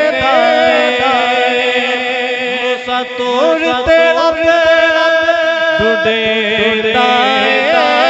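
A man's solo voice chanting a naat, a devotional poem in praise of the Prophet Muhammad, into a microphone, in long held notes with wavering ornaments.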